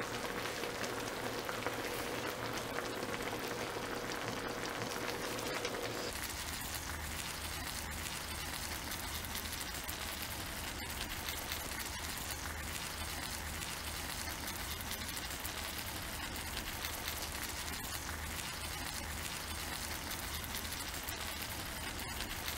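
Dakgalbi, spicy chicken and vegetables in sauce, sizzling and bubbling on a griddle pan with a steady hiss. The sound shifts about six seconds in, and there are a few light clicks.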